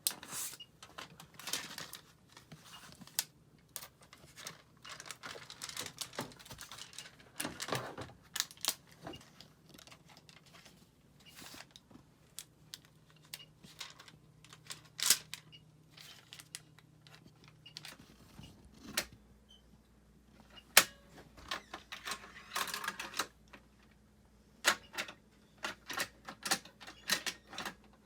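Irregular clicks and taps of small plastic toys being handled, with a faint low hum underneath that shifts in pitch about two-thirds of the way through.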